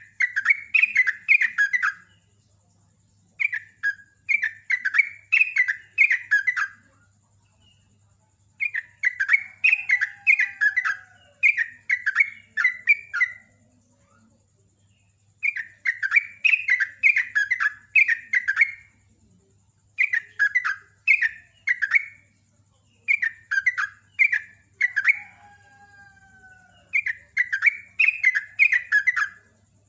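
Yellow-vented bulbul (trucukan or jogjog) singing in repeated rapid, chattering phrases, each a second or two long with short pauses between.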